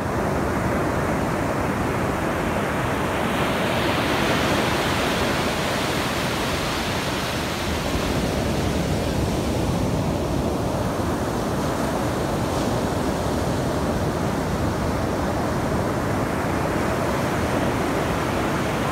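Ocean surf breaking and washing up the beach: a steady rush that swells a few seconds in and again near the end.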